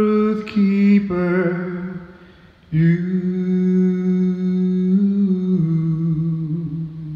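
A man's voice humming a slow, wordless tune in long held notes. After a short pause about three seconds in, one note is held for about four seconds and steps down lower before it stops.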